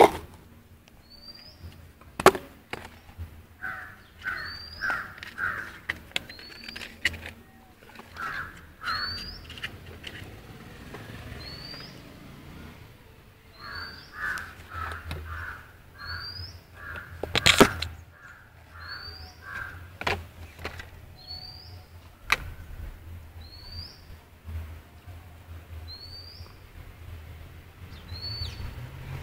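Birds calling: short series of crow-like caws again and again, under a small bird's high rising chirp that repeats about once a second. A few sharp knocks cut through, the loudest about two-thirds of the way in.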